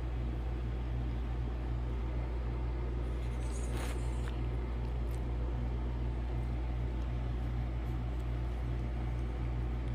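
A steady low mechanical hum at an even level, with a faint brief rustle about four seconds in.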